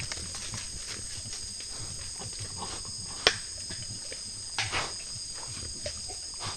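Night insects trilling steadily in a high chorus while peccaries forage in leaf litter: soft low knocks and shuffling, one sharp click about three seconds in, and a short crunching rustle just before five seconds.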